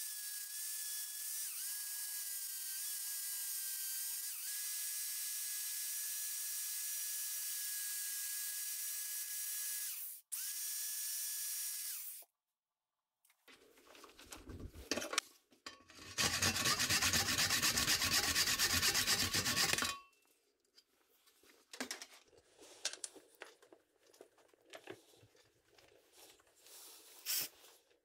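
A corded handheld power sander runs steadily with a high whine, sanding a wooden tool handle. It cuts out briefly, then stops before halfway. Knocks follow as the handle is clamped in a metal bench vise, then a few seconds of loud scraping on the wood and quieter rustling and clinks.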